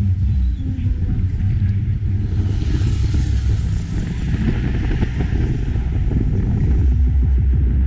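Car driving along a city street, heard through a microphone held out of the window: a low, uneven road and engine rumble with wind on the microphone. A rushing hiss swells from about three to six seconds in as traffic passes close by.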